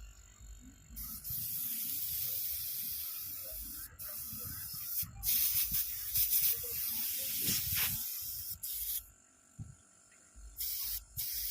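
Spray nozzle on a homemade compressor built from a refrigerator compressor, hissing in bursts as it is triggered. There are two long sprays of about three seconds each, then several short blasts near the end.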